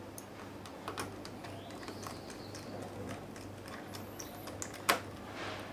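Small clicks and taps from handling a MacBook Air and its parts during reassembly, with one sharper, louder click about five seconds in. A steady low hum runs underneath.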